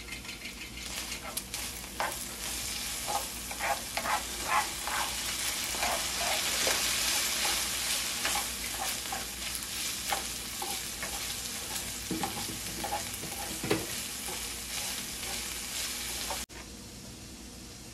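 Ground beef sizzling as it browns in a skillet, with the scraping and tapping of plastic utensils stirring and breaking up the meat. The sizzling stops abruptly about a second before the end, leaving a quieter background.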